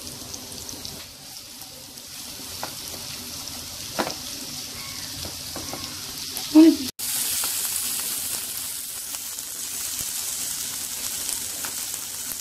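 Thick-sliced onions frying in ghee and oil, a steady sizzle as they are stirred with a spoon. A short loud knock comes about six and a half seconds in, and the sizzle is louder and brighter after that.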